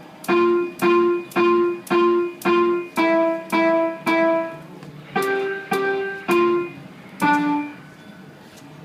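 Electronic keyboard with a piano voice playing twelve single notes, about two a second: eight on one pitch, then three a little higher and a last lower one. Each note is struck and left to die away.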